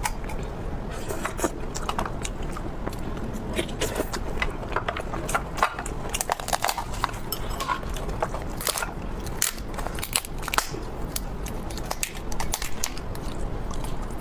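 Close-miked biting and chewing of crispy food, with a steady run of irregular crackling crunches.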